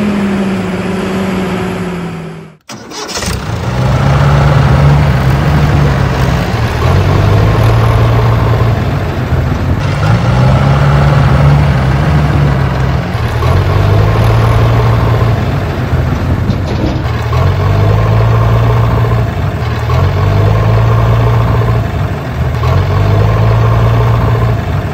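Tractor engine sound: a short engine note rising then falling, a sudden break, then the engine running steadily with its pitch stepping up and down in a pattern that repeats every few seconds.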